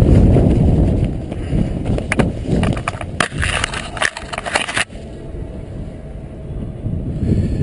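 Freefall wind buffeting a helmet-mounted microphone, easing off as the parachute deploys. From about two seconds in, the canopy fabric flaps and crackles in rapid snaps as it opens; these stop sharply near five seconds, leaving a softer wind rush under the open canopy.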